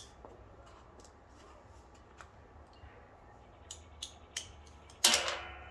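Light metallic clicks and taps of hand tools on the mower engine as the carburettor screws are fitted, then one loud metallic clank about five seconds in that rings on briefly.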